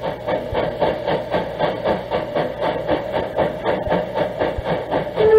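Recording of the 1855 steam locomotive The General, a 4-4-0, running at speed: rapid, even exhaust chuffs about five a second, said to be in a tunnel. Just before the end its acorn-design steam whistle starts, one steady note.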